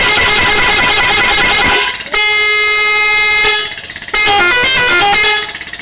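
Indonesian bus 'telolet' multi-tone air horn sounding three loud blasts: a long dense blast, then a steady held chord, then a quick run of changing notes in the telolet tune.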